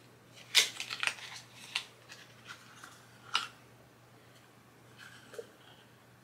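A person sniffing a rose-scented facial cleansing bar held to the nose: several quick sharp sniffs in the first two seconds and one more a little past three seconds, with faint handling sounds.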